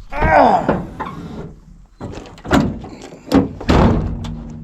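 A short vocal cry at the start, then several hard knocks and clanks of a dog box and its door as a beagle is coaxed into it.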